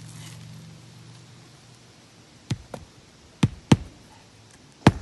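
Hammer striking roofing nails through an asphalt shingle: about five sharp knocks in the second half, some in quick pairs, after a quiet start.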